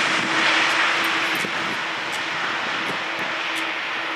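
Boeing 747-400 rolling out on a wet runway just after touchdown: a steady roar from its jet engines mixed with the rush of water spray from the tyres, with a steady low tone running underneath. The sound eases slightly about a second and a half in.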